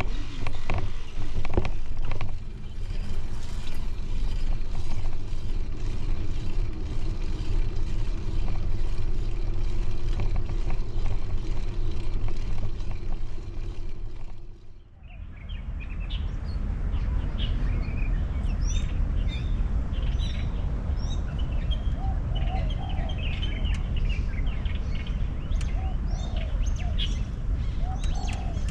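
Wind rumble on the microphone while a bicycle rides along a paved path. After a short dip about halfway through, birds give many short chirps over a steady low rumble.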